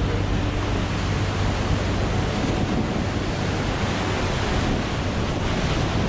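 Whitewater of a river rapid rushing and splashing around a raft, in a steady loud rush, with wind buffeting the microphone.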